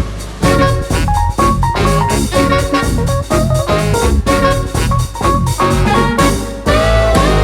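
Upbeat background music with a steady beat, jazzy in style, with held instrumental notes over drums.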